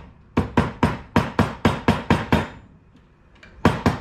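Small hammer tapping a length of wire against a workbench to straighten it, with the wire rotated between blows. A quick run of sharp knocks, about five a second, pauses for about a second past the halfway point, then starts again.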